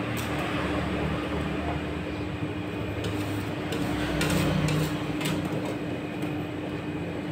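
Rolled ice cream machine's refrigeration unit humming steadily under the cold steel pan, while a metal scraper spreads liquid ice cream mix across the pan, clicking and tapping on the steel a few times between about three and five seconds in.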